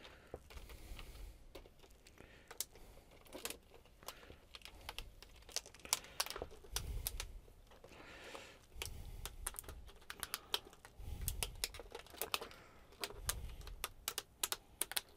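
Plastic reflector sheet of an LED TV backlight clicking and crackling as hands press it down over the LED lenses: an irregular run of light taps and clicks, with a few soft thumps on the panel.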